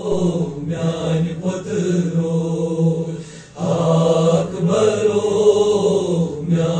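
A group of men chanting a noha, a Shia lament, together in sung phrases over a held low tone, with a short break a little past three seconds in.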